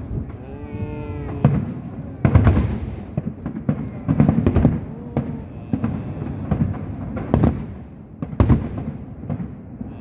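Aerial fireworks bursting in quick succession: repeated deep booms mixed with crackling, the loudest blasts about two, four, seven and eight and a half seconds in.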